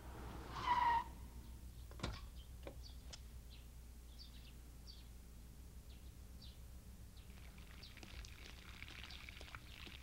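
Faint birds chirping in scattered short tweets. A louder single pitched call comes about half a second in, and a sharp click at about two seconds.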